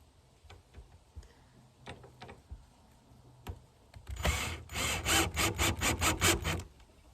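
Hardware being fastened into the wood of a coop lid while a latch is fitted. A few light clicks, then about four seconds in, a quick run of about ten rasping strokes lasting a little over two seconds as a screw is driven.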